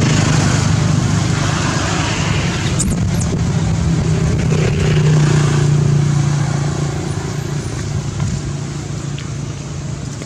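A motor vehicle's engine running steadily with a low hum, fading away over the second half.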